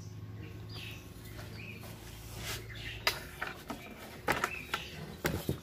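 Light metallic clicks and taps from wire being wound around the legs of a steel tripod light stand, with a few sharper knocks in the second half. Faint bird chirps sound in the background.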